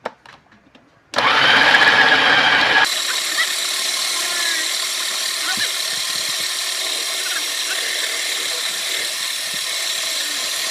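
Electric food processor starting up about a second in, loudest for under two seconds while it chops through chunks of raw chicken, then running steadily at a slightly lower level as it blends the chicken, onion and cream into a paste.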